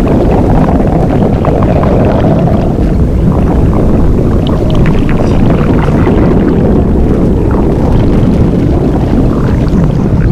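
Blueberry inflation sound effect: a loud, steady, deep rumbling with scattered faint creaks and clicks.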